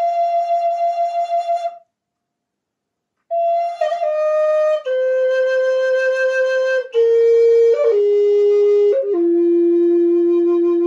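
Native American style flute playing a slow, simple line. A long held note breaks off about two seconds in, and after a short breath pause the flute plays a run of held notes stepping down, one after another, to a low note that is held to the end.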